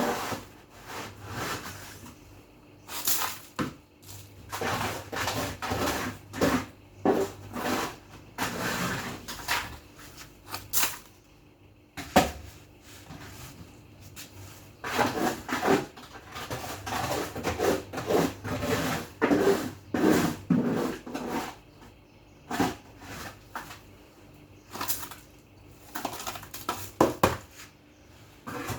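Irregular clatter of dishes and containers being handled, with many separate knocks, clicks and short scrapes.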